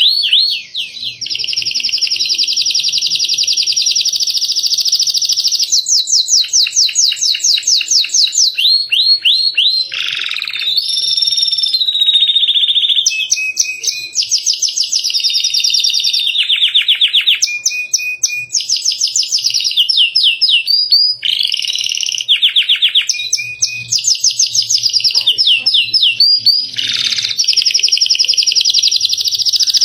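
Domestic canary singing a long, almost unbroken song of fast trills and rolling runs, switching to a new pattern every second or two with only brief pauses.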